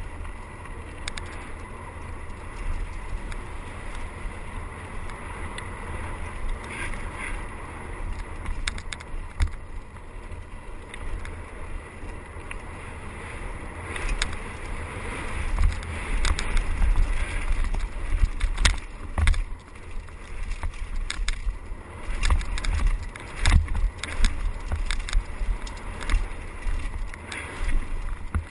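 Wind rumbling on a helmet camera's microphone during a mountain-bike descent, with tyres running over dirt and gravel and the bike rattling and knocking over bumps. The knocks come thicker and louder in the second half.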